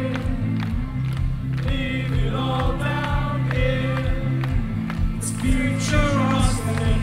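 Live indie rock band performing, heard from within the audience: a sung melody over sustained bass and guitar chords with a steady drum beat. The sound turns brighter about five seconds in.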